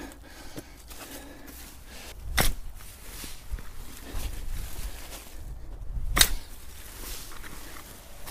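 A digging tool working soil while potatoes are dug up: two sharp strikes about four seconds apart, over a low rumble.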